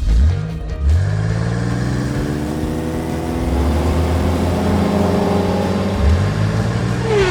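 Car engine sound effect revving up three times: at the start, about a second in, and again about six seconds in, running steadily between, with a short falling squeal near the end.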